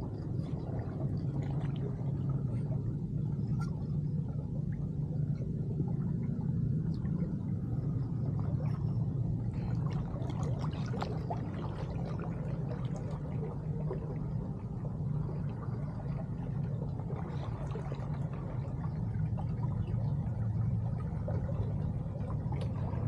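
Canal water draining into a concrete culvert pipe: a steady low rumble of flowing water.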